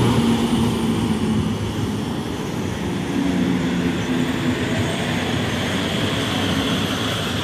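Passenger train of InterCity coaches hauled by an EP09 electric locomotive rolling past on the rails with a continuous rumble. A steady low hum from the departing locomotive fades within the first couple of seconds, then comes back faintly for a moment.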